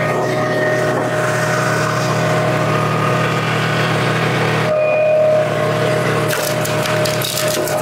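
Wolfe Ridge 35 HO log splitter's gasoline engine running steadily, its note changing about halfway through, with wood cracking and splintering near the end as an ash round splits on the wedge.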